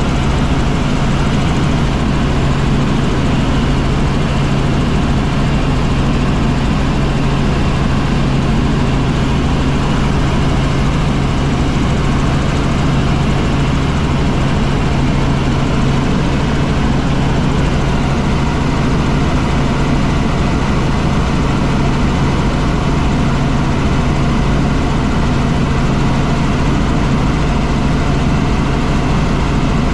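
Helicopter in steady cruise flight: an even, unbroken rotor and engine drone with a strong low hum.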